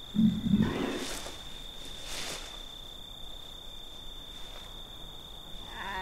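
A resting camel gives a low grumbling groan in the first second, over a steady high-pitched insect drone; a shorter wavering call comes near the end.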